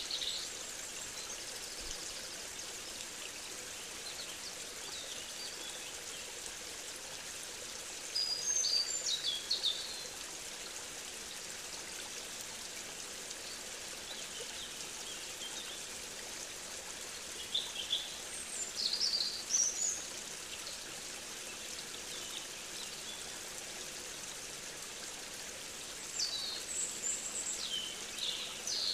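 A stream running steadily, with a songbird singing in short bursts of high chirps three times, about a third of the way in, around two-thirds, and near the end.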